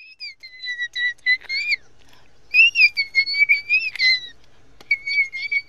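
A man imitating a bird with his voice: high, whistle-like warbling tones in three phrases, with quick wobbles and upward flicks in pitch.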